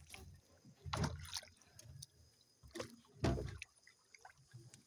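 Water splashing and thuds around a small boat, in two short bursts about a second in and just after three seconds in, as a large hooked surubim catfish is handled at the side.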